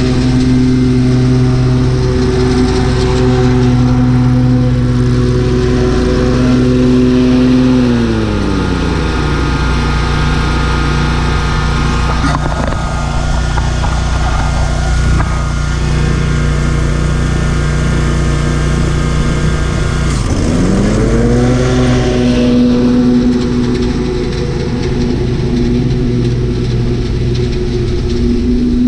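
Lawn mower engine running steadily; about a third of the way in its pitch slides down and it runs slower for a while, then it briefly dips and revs back up to its earlier speed.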